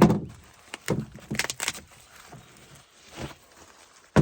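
Handling knocks and clatters from boxed chainsaw chain loops being picked up and unpacked, with a sharp knock at the start and another at the end and a few lighter rattles between.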